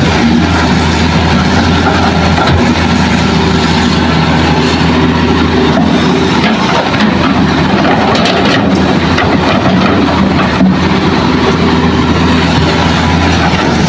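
Hitachi hydraulic excavator's diesel engine running steadily under working load as it swings and dumps a bucket of rock into a dump truck, with a brief knock about ten seconds in.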